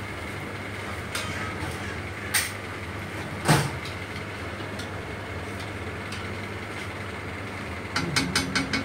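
Poori deep-frying in hot oil in an iron kadai: a steady sizzling hiss. A metal skimmer clinks against the kadai twice in the first half, and near the end there is a quick run of taps as the fried poori is lifted out and drained over the pan.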